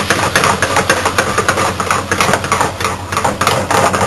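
Hot frying pan of sautéed mushrooms and smoked chicken sizzling and crackling fast as fresh cream is poured in, over a steady low hum. The crackle dies down sharply near the end.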